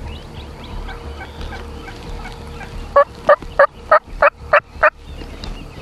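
A turkey giving a series of seven loud yelps about three a second, with faint songbirds chirping before it.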